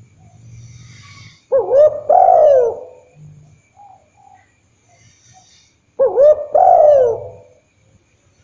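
Spotted dove cooing: two call phrases about four and a half seconds apart, each a short note followed by a longer coo that rises and then falls in pitch.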